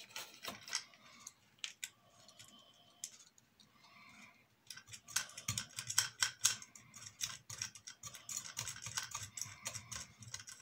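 Small metal nuts and bolts clicking and ticking against a clear plastic beam as fingers fit and thread them by hand. Scattered clicks at first, turning into a busy, rapid clatter about halfway through.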